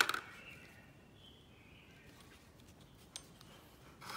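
Loose steel balls from a 7205C angular-contact spindle bearing clicking and rattling into a plastic lid as they drop out of the bearing. A short clatter comes at the start, a single tick about three seconds in, and another clatter near the end.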